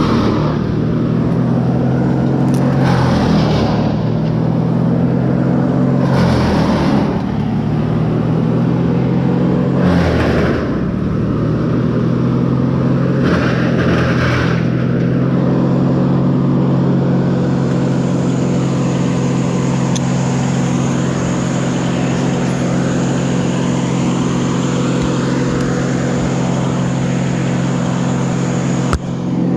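A large engine running at a steady speed, with a few short noisy surges in the first half.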